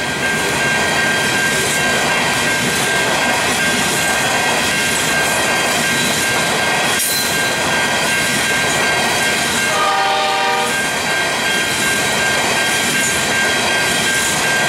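Coal hopper wagons rolling past a level crossing: a steady rumble and clatter of steel wheels on rail, with a steady high ringing tone throughout. A short horn blast sounds about ten seconds in.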